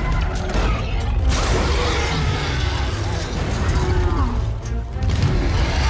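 Film soundtrack with loud orchestral score over a deep rumble, mixed with creaking, straining metal and crashing sound effects from a monster wrecking a suspension bridge. Sharp hits come about a second in and again near the end.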